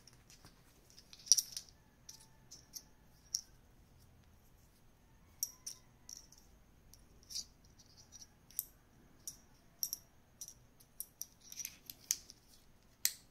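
Plastic triangular opening picks clicking and clattering against each other as they are handled in the hands: irregular sharp clicks, the loudest about a second in and near the end.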